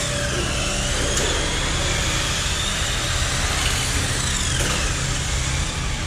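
Electric motors of radio-controlled Tamiya cars whining as they race, the pitch rising and falling as they speed up and slow down, over a steady low rumble.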